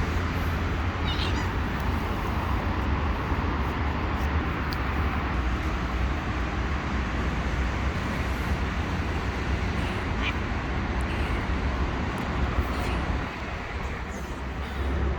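Steady street noise with a low rumble, as of passing traffic, and a cat meowing briefly a few times: once about a second in, then two or three short meows near the end.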